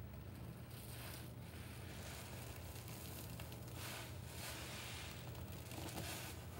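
Soapy kitchen sponge squeezed and wrung by hand over a sink of suds: wet squelching and crackling foam in several swells, the strongest in the second half. A faint steady low hum runs underneath.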